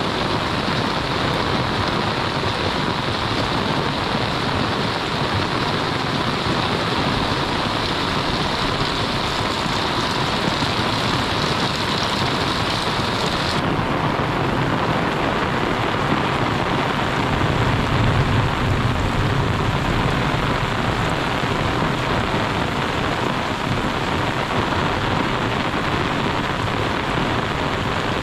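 Heavy monsoon rain falling steadily, a dense even hiss. About halfway through the brightest part of the hiss drops away suddenly, and a low rumble swells briefly later on.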